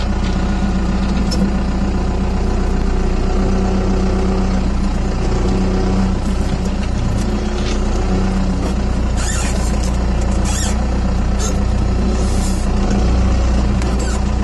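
4BT Cummins four-cylinder turbo-diesel running steadily as the truck crawls along a rough dirt track, heard from inside the cab. A few brief, sharp, high noises come in the second half.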